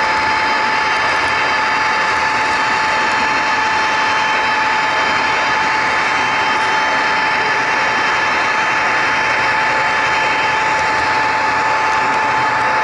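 HO scale model train running along the track, heard from a camera riding on it: a steady high whine from the small electric motor and gearing over a continuous rumble of wheels on rail.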